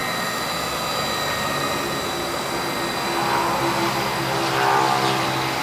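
KOMO VR508 Mach II CNC router running with a steady mechanical whir. A motor whine comes in about three seconds in and swells slightly higher and louder near the end.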